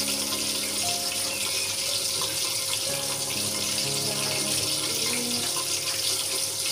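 Steady rush of running water, under background music with slow, held notes.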